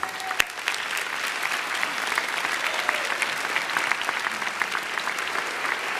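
Large audience applauding steadily, many hands clapping at once. One sharp knock stands out about half a second in.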